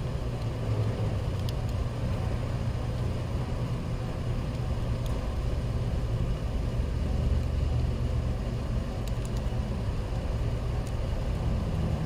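Steady low engine rumble of a vehicle running nearby, with a few faint ticks as a test light's probe touches fuse terminals.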